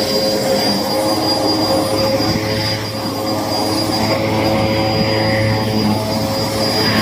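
Hoover vacuum cleaner running steadily, a high whine over the motor hum; the owner says the machine is clogged.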